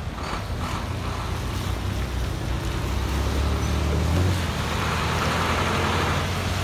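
Cars driving across a railroad grade crossing on a wet road: a low engine hum and tyre hiss on the wet pavement, growing louder about four seconds in.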